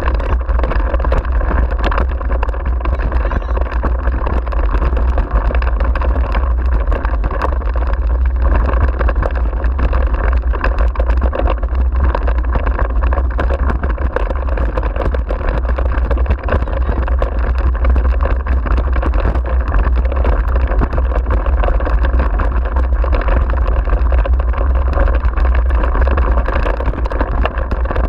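Steady wind rush buffeting a handlebar-mounted camera's microphone, over the rumble of wheels rolling fast on a rough dirt track, with scattered small ticks and rattles from the ride.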